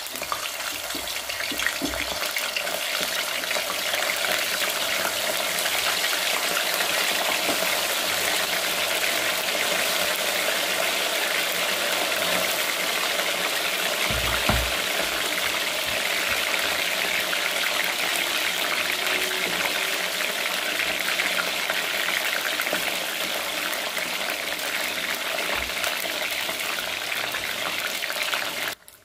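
Frozen, cornstarch-coated potato fries deep-frying in hot oil in a steel wok: a dense, steady sizzle and crackle that builds over the first few seconds and cuts off suddenly near the end. A dull knock is heard about halfway through.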